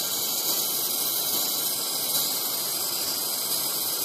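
Oxy-fuel brazing torch, burning kitchen gas with oxygen, hissing steadily as its flame heats a copper pipe joint on a refrigerator's refrigerant circuit.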